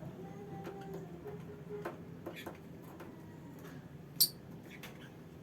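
Lovebirds making scattered light ticks and clicks, with one short, sharp chirp about four seconds in.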